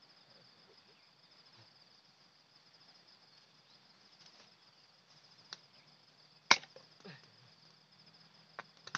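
Insects chirring steadily in a high, even drone, with a sharp knock about six and a half seconds in and a few lighter clicks after it.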